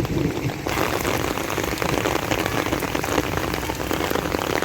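Heavy rain pattering, a dense patter of drops hitting a surface that grows fuller and brighter just under a second in.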